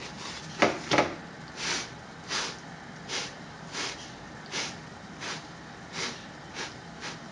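Batbout (Moroccan pan bread) turned over by hand onto a griddle pan, with two sharp slaps about a second in. Then a hand pats the top of the bread in soft, regular dabs, about one every 0.7 seconds.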